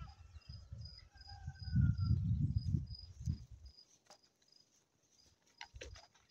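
A cricket chirping steadily, about three chirps a second, over a low rumble on the microphone that fades out a little over halfway through.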